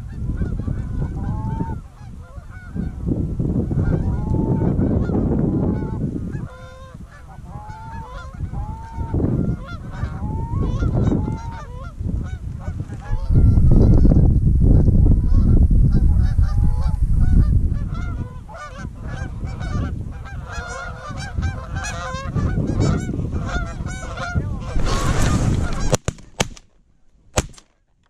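Canada geese honking and clucking, with single honks early on and a faster, denser run of clucks in the second half as the flock comes in over the decoys. A heavy low rumble of wind on the microphone swells and fades under the calls.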